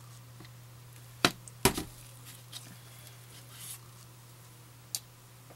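Plastic measuring jugs knocking against a stainless steel worktop as they are handled and set down: two sharp knocks close together about a second and a half in, then a couple of lighter taps, over a faint steady low hum.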